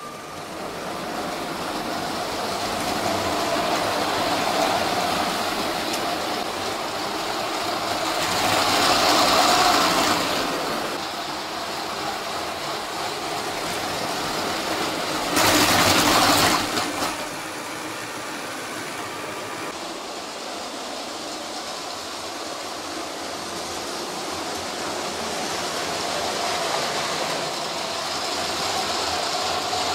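Train running along the track, a continuous rolling noise that swells louder about eight seconds in, with a short, loud rush as it passes close about halfway through.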